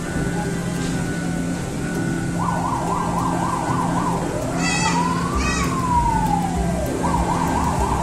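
Electronic siren sound: a fast warbling yelp, then one slow wail rising and falling in the middle, then the fast warble again near the end, over a steady low hum.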